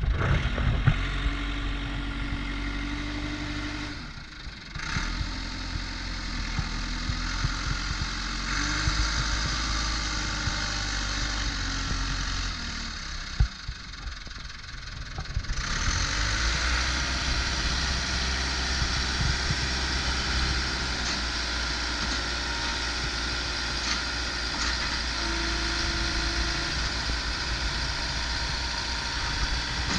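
1997 JCB 3CX backhoe loader's four-cylinder diesel engine running. The sound drops away briefly about four seconds in and again for a couple of seconds around the middle, then the engine runs louder and steady for the second half.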